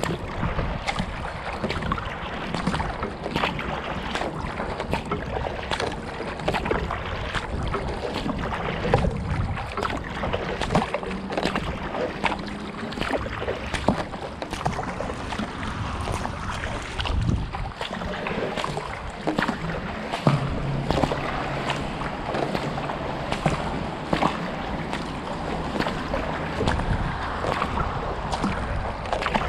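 Kayak paddle strokes dipping and splashing into the water, with water washing along the hull and drips and splashes hitting the deck close to the camera in frequent irregular clicks. A low steady hum joins for several seconds about two-thirds of the way through.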